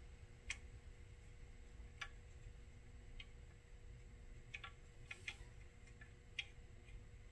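Faint small clicks, about seven spread irregularly, from hands handling an xTool D1 Pro laser module and turning a small fitting on its side, over a faint low hum.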